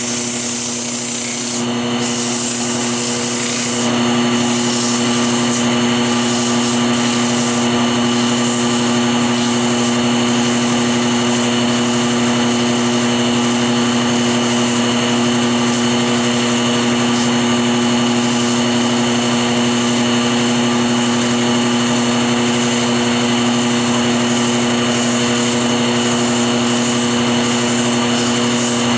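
Wood lathe running with a steady motor hum while sandpaper is held against the spinning hickory workpiece, making a steady rubbing hiss that grows louder about four seconds in.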